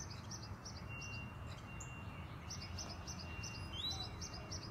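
Small songbirds chirping in quick runs of short, high notes, with one rising note near the end, over a faint steady high whine and low background rumble.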